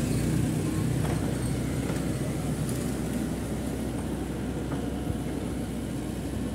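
Heavy diesel engine running with a steady, low, even rumble.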